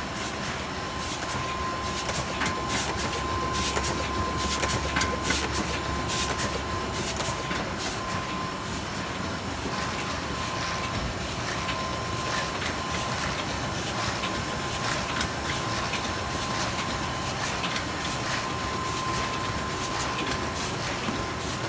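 MY1080-1100 automatic die-cutting machine with its stripping unit running: a steady mechanical clatter with rapid clicking, busiest in the first several seconds, over a faint steady high whine.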